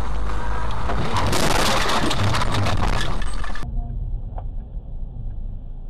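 Car crash recorded by a dashcam: loud road noise, then about two seconds of crunching and clattering debris, broken off by a sudden cut to quieter engine and road noise.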